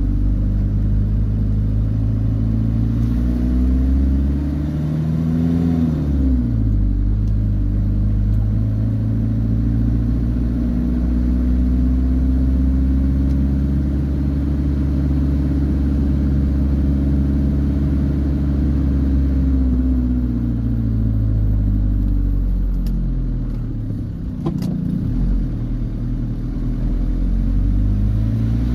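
Engine of the vehicle being driven, heard from inside the cabin, its pitch rising and falling with throttle and gear changes on a winding road: a sharp drop about six seconds in, a slow fall around twenty seconds, and a brief dip with a click near twenty-four seconds.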